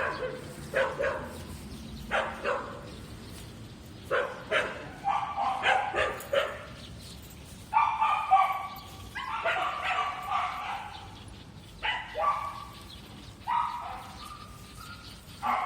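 Mixed-breed dog barking repeatedly in bursts, some calls short and sharp, others drawn out into longer yelps lasting about a second.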